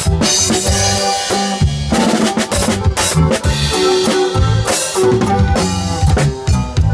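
Live norteño band music: a drum kit keeps a steady beat with snare, bass drum and cymbals over the band's pitched instruments.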